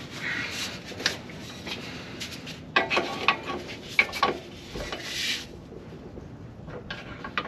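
Metal clinks and scrapes as the driveshaft's rear U-joint and its retaining straps are worked loose from the pinion yoke by hand. A few sharp metallic clanks come about three to four seconds in.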